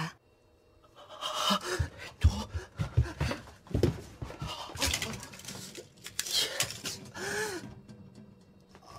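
A person breathing hard in irregular panting breaths and gasps, with a few short wordless vocal sounds.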